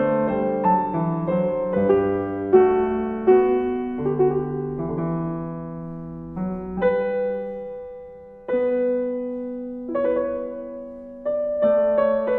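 Slow, quiet solo piano music. Single notes and chords are struck and left to ring and fade, with longer held chords in the second half.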